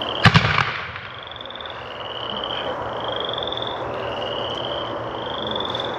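A 30 mm Silver Rain Comet with Blue Line single-shot firework fires with one sharp bang just after the start. A chorus of frogs trills throughout: high, pulsed trills, each under a second long, following one another and overlapping.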